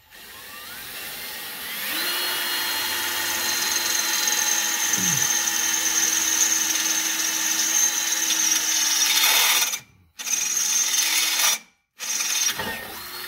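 Power drill with a tap-size twist bit boring a hole up into the Jeep's bumper. The motor whine climbs over the first two seconds and then holds steady. Near the end it stops and restarts twice in short bursts.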